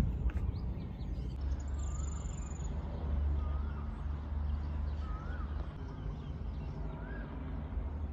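Low, uneven rumble of wind on the microphone, with faint bird calls over it: short rising-and-falling chirps every second or two and a brief high, thin whistle about two seconds in.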